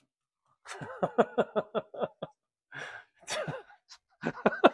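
A man laughing: a quick run of short 'ha' pulses, followed by breathy sighs and a few more short laughing sounds near the end.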